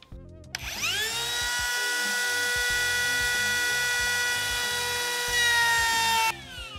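Cordless compact router spinning up with a rising whine, running at a steady high pitch while it routs out a half lap in wood, then switched off about six seconds in and winding down with a falling whine.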